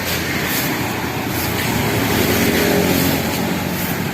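A motor vehicle's engine running close by, growing louder about halfway through and easing a little near the end.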